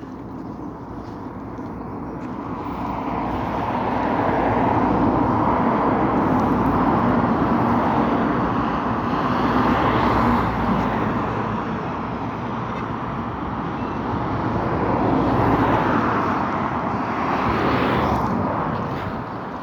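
Road traffic: vehicles passing, the noise swelling in over the first few seconds, easing off in the middle, then swelling twice more before fading near the end.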